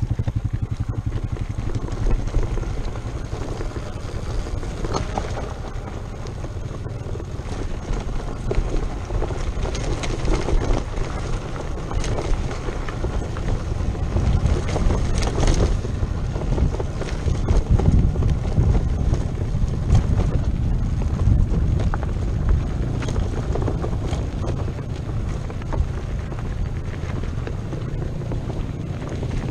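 Wind buffeting the microphone over the rumble and clatter of a broken dirt bike rolling down a rough dirt trail with its engine off. It is loudest and roughest about halfway through.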